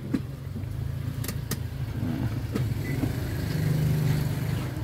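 Car engine idling steadily, rising a little about three and a half to four seconds in. Two short clicks sound about a second and a half in.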